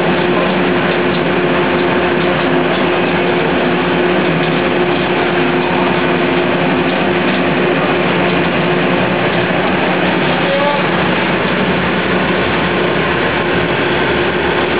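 Pet food production line machinery running steadily: a loud, constant mechanical din with a steady hum through it, from the line's motors and mesh-belt conveyor drive.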